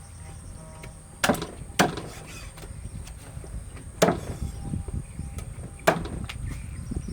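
Four sharp wooden knocks at irregular intervals, like a knife chopping on a wooden cutting board, over a steady low rumble.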